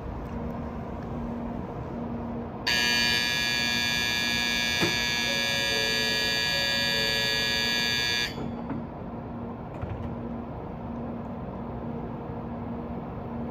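Shinkansen platform departure bell ringing steadily for about five and a half seconds and then cutting off, the signal that the stopped train is about to close its doors and leave. A low hum pulses on and off underneath.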